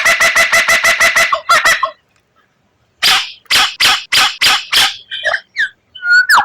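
White-rumped shama (murai batu) singing a rapid 'tembakan' burst: a fast run of loud, harsh repeated notes, about eight a second, that breaks off about two seconds in. After a second's pause it resumes with a slower harsh run and a few short whistled notes near the end.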